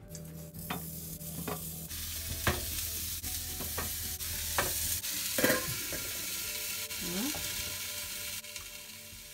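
Raw sweet potato slices sizzling as they are laid one by one into a hot Saladmaster stainless-steel skillet, with a short knock as each slice goes down. The lid is then set on, and the sizzle drops near the end.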